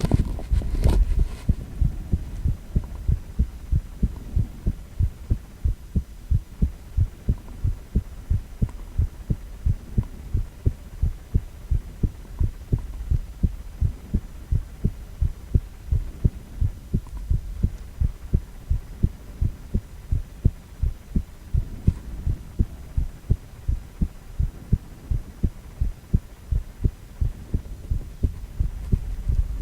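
A man's heartbeat played through a cardiac ultrasound: regular low beats, about two a second, over a low steady hum. A brief scratchy noise sounds at the very start.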